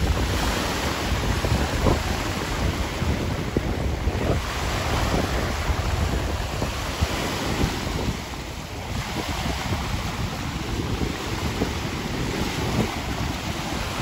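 Strong, gusty storm wind rushing and buffeting the microphone, easing briefly a little past the middle before picking up again.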